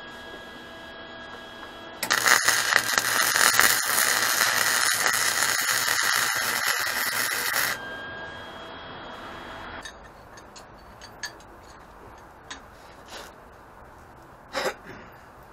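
A wire-feed (MIG) welder arcing on the base of an upright steel tube stood on a plate: a loud, steady crackle that starts about two seconds in and cuts off abruptly after about six seconds. A steady hum runs before and after, and near the end come a few light clicks and one louder metallic knock.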